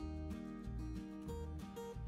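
Background music: an instrumental track with plucked guitar and a steady bass line.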